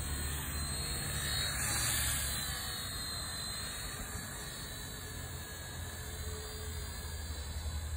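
Small electric RC helicopter (Eachine E119) in flight: a steady high-pitched whine of its motors and rotor, swelling briefly about two seconds in.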